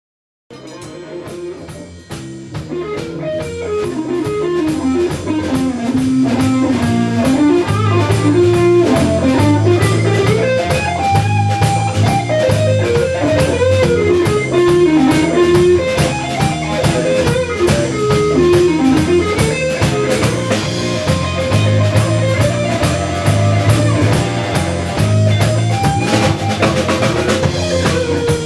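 Texas blues-rock band playing live: a lead electric guitar melody over bass and drum kit with a steady cymbal beat. The music fades in over the first several seconds.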